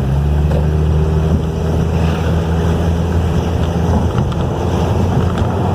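A 2012 Ford Focus's Duratec engine running steadily as the car is driven, a low drone with a fainter higher tone that becomes less even about four seconds in. The car is on a road test for a noise the engine makes under load, which the mechanic places around the poly-V accessory belt.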